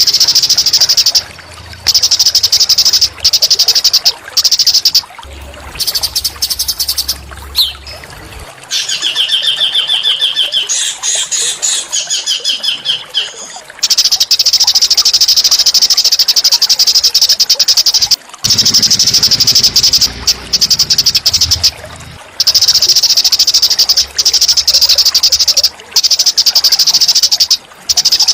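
Small songbirds giving rapid, high buzzing trills in long stretches broken by short gaps, played as a masteran recording for training murai batu song. About nine seconds in, a run of quick repeated trilled notes sounds for several seconds.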